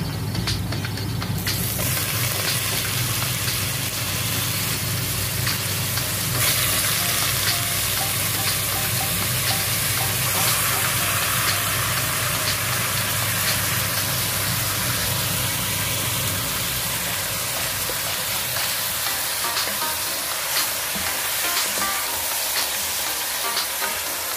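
Chunks of raw meat sizzling in hot oil with onions and spices in a pot, with occasional small clicks of stirring. The sizzle starts about a second and a half in and grows louder about six seconds in.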